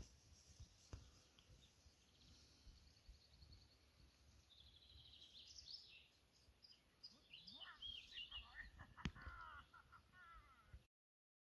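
Faint outdoor ambience with small birds chirping and trilling in the distance, and one sharp click about nine seconds in. The sound cuts off suddenly near the end.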